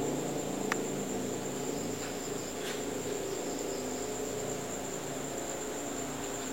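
Steady high-pitched insect drone over a low background hum, with one short click just under a second in.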